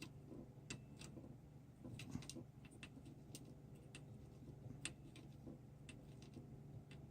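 Faint, irregular light clicks and taps of small tools on a circuit board during hand soldering of an SMD chip, over a low steady hum.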